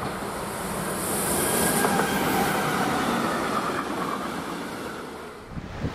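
A train running past on rails: the rolling noise of the wheels swells for about two seconds, then fades away.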